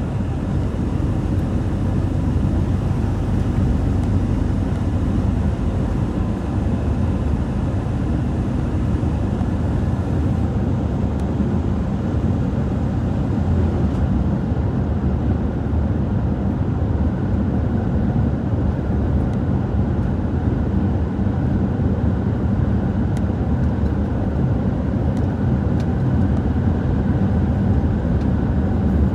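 A motor vehicle driving at steady speed: a constant low engine drone with road rumble, unchanging throughout.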